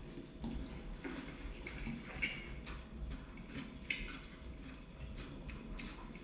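Close-up wet chewing and mouth sounds of someone eating a forkful of ackee and saltfish with pasta, with many small clicks and smacks. A fork clinks on the ceramic plate twice, about two and four seconds in.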